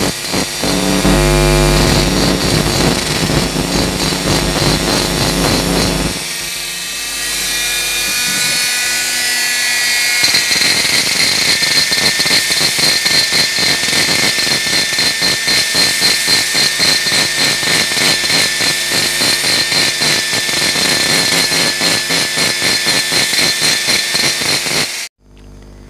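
A 'tuner' rotary grinder with a long burr grinding inside the exhaust port of a motorcycle's aluminium cylinder head, porting it and clearing carbon: a steady high whine with a fast pulsing as the bit cuts. About six seconds in the low hum drops away and the whine rises higher, and the tool cuts off suddenly just before the end.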